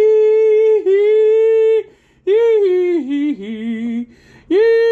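A man's voice singing long wordless held notes. The note breaks off about 2 seconds in, comes back, slides lower into a wavering note, then a new high held note starts near the end.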